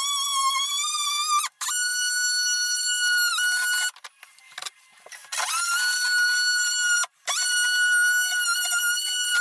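Cordless oscillating multi-tool whining at a high steady pitch as it cuts at the edge of the valve opening in the wall board. It runs in short bursts, stopping and starting again about a second and a half in, around four seconds, and briefly near seven seconds.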